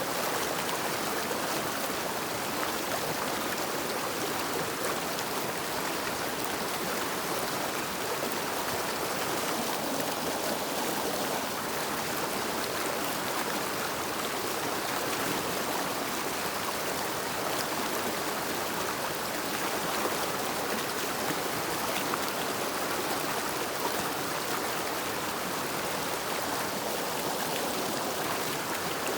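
River water flowing steadily, an even rushing hiss with no break or change.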